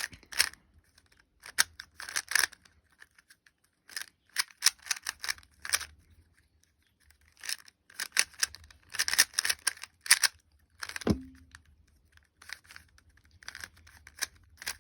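Plastic Rubik's cube being turned by hand during a speed solve: bursts of quick clicking and scraping as the layers are twisted, broken by short pauses. One louder knock about eleven seconds in.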